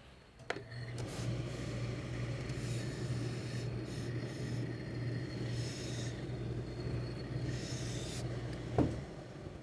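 Heavy tailor's iron pressed and slid over wool suit cloth, a rubbing, hissing sound over a steady low electric hum. The hum comes on with a click about half a second in and stops with a click near the end.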